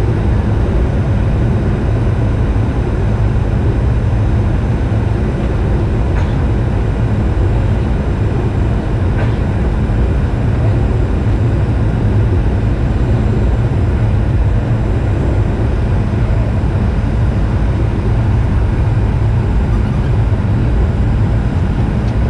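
Steady low drone of a Boeing 737-900ER's cabin on final approach: its CFM56-7B turbofan engines and the airflow over the fuselage, heard inside the cabin at a window seat by the wing.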